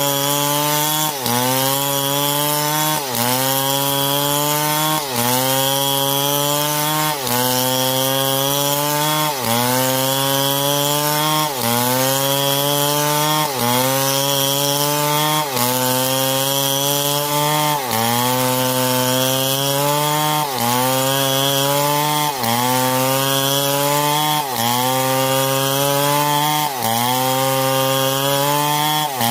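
Stihl MS661 chainsaw cutting through wood under load. The engine's pitch drops sharply and climbs back about every two seconds as the chain bites and frees up.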